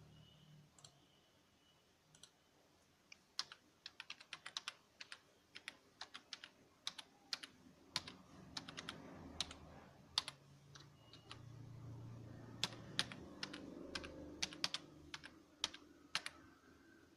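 Typing on a computer keyboard: irregular runs of sharp keystroke clicks starting about three seconds in and stopping shortly before the end.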